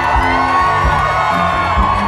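Live band music with a steady bass line and drum beat, with a crowd whooping and cheering over it.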